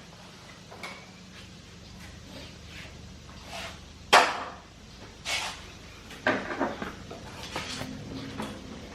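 Scattered clanks and clicks of tools and engine parts being handled, the sharpest about four seconds in and a short run of them a couple of seconds later, over a faint steady hum.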